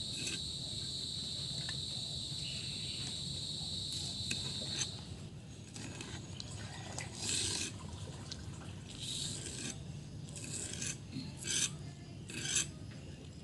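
A knife blade scraping and slicing along green onion stalks on a wooden chopping block, about five short rasping strokes in the second half. A steady insect trill sounds through the first five seconds or so, then stops.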